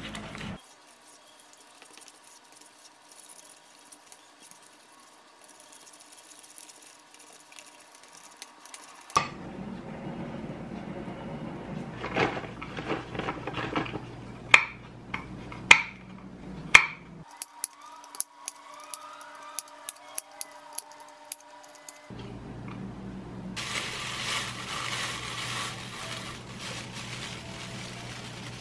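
A kitchen knife chopping walnuts on a wooden cutting board, with three loud sharp knocks about halfway through. Near the end comes an even rattling hiss as flour is shaken through a mesh sieve over a stainless steel bowl.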